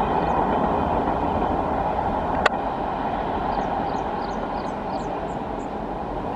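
Train passing on the line, a steady wheel-on-rail noise that slowly fades, with one sharp click about two and a half seconds in.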